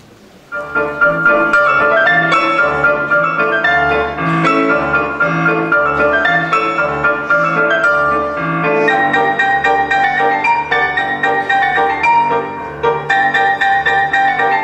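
Piano music that starts suddenly about half a second in: a busy run of notes over a repeating bass pattern.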